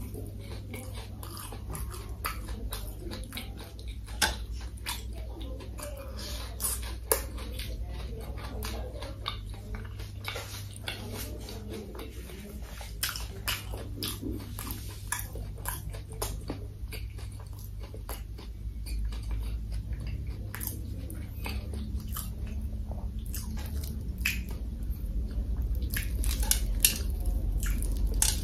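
Close-miked chewing of crisp fried food: a steady run of sharp crunching clicks and mouth sounds, growing a little louder near the end, over a steady low hum.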